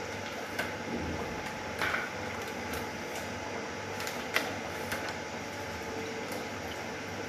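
Knife tapping and knocking on a cutting board while paneer is cut, a handful of scattered clicks over a steady background hiss.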